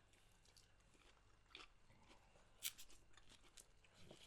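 Faint, scattered crunches and mouth clicks of someone chewing crispy deep-fried pork knuckle, a few soft crackles with quiet between them.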